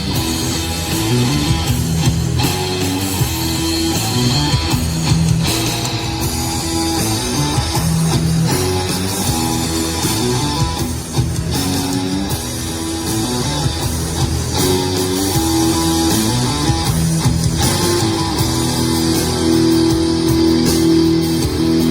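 Guitar-led rock music with drums, played back through a portable wireless speaker in a sound test.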